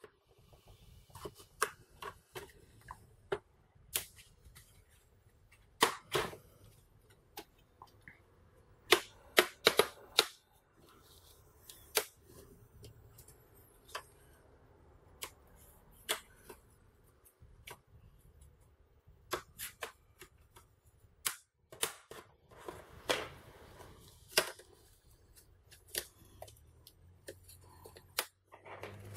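Plastic retaining clips of a Toshiba Satellite C855D laptop's screen bezel snapping loose as a plastic pry tool is worked along the seam: irregular sharp clicks and snaps, some louder ones coming in quick clusters.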